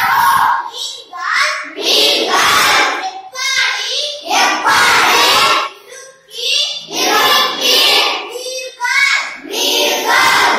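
A group of children reciting phrases loudly in unison, in a sing-song chant, in short stretches of a second or two with brief pauses between them.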